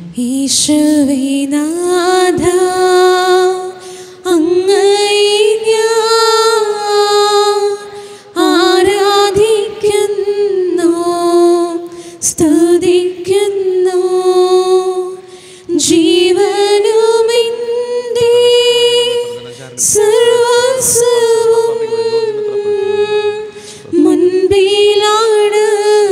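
A woman singing a hymn without accompaniment, in long held and gliding phrases with short breaths between them.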